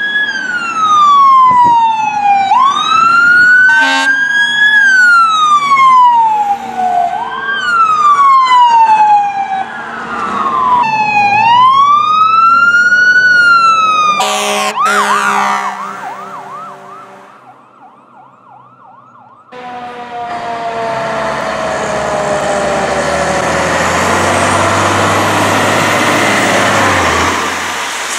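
Fire truck sirens wailing, the pitch sliding slowly down and snapping back up, again and again. About halfway through comes a brief harsh blast and a quieter stretch. Then a fire truck passes close, its engine loud under a siren tone that slowly falls.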